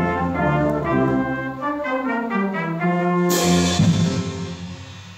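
School brass ensemble with trumpets, horns, trombones and tuba playing the closing bars of a concert piece. A sudden bright crash-like hit about three seconds in marks the final chord, which then rings away and fades.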